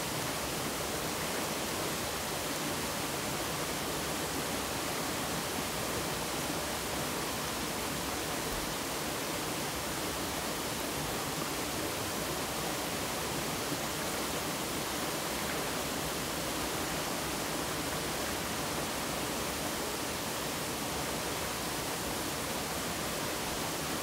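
Mountain valley stream flowing: a steady, even wash of water.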